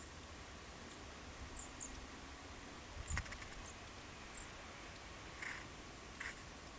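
Long-tailed tits giving short, thin, high calls now and then. A sharp click with a low thump comes about three seconds in, and two brief rustles come near the end.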